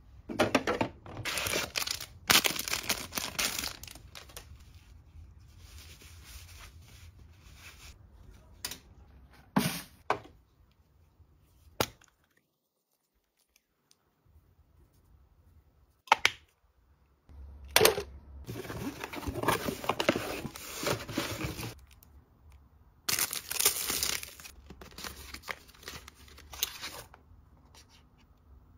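Skincare packaging and bottles being handled: several stretches of crinkling and tearing a few seconds long, with a few sharp clicks between them and short pauses.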